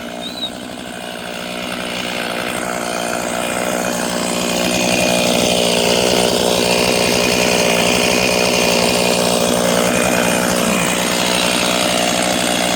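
Chainsaw running at high speed, growing louder over the first few seconds and then holding steady.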